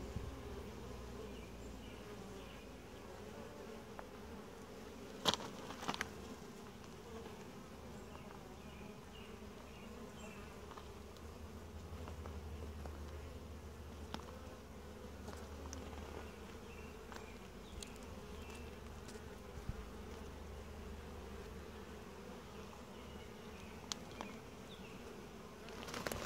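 Honey bees buzzing in a steady, even hum, the sound of a calm colony on an open hive frame. Two sharp clicks about five and six seconds in.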